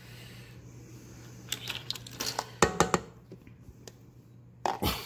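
A spatula scraping whipped butter off a stand mixer's beater, with a run of sharp clicks and knocks, some of them briefly ringing, as the beater and spatula strike the stainless steel mixing bowl, about a second and a half in and again near the end.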